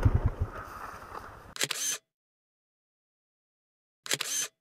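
ATV engine shutting off, its pulses slowing and dying away over about a second and a half. Then two brief bursts of noise, each cut off into dead silence.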